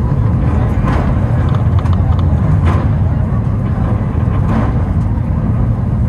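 Takao Tozan Railway funicular cable car running downhill: a steady low rumble with a faint clunk about every two seconds.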